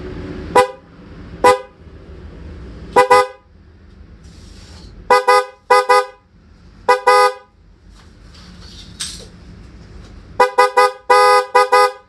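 Hella Midnight Black twin-tone snail horns sounding in short honks: single toots, then pairs and triples, and near the end a quick run of honks with one held a little longer.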